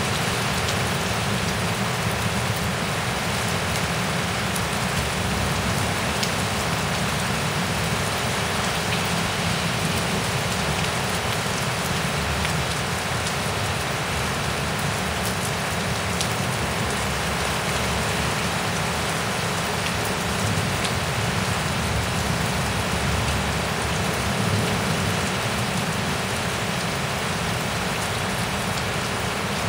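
Heavy thunderstorm rain pouring steadily and hissing, with scattered drops ticking on nearby surfaces.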